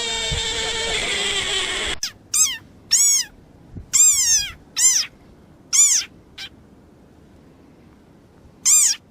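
A long wavering wail, falling in pitch, cuts off suddenly about two seconds in. Then a small animal gives a string of short, high-pitched squeaky calls, each rising and falling, about seven of them.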